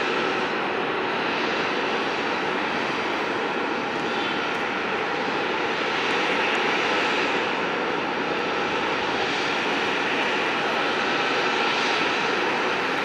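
Jet airliner engines running, a steady, unbroken noise with a few faint whining tones.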